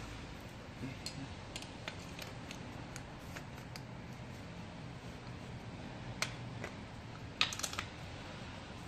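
Scattered light clicks and clinks of metal parts being handled in gloved hands: a red aftermarket camber-kit upper control arm and its bolts. A few sharper clicks come about six seconds in and again a little later, over a faint steady low hum.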